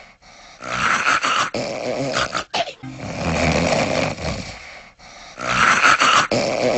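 Exaggerated cartoon snoring from a sleeping boy: three long, loud snores of about two seconds each, with short pauses between them.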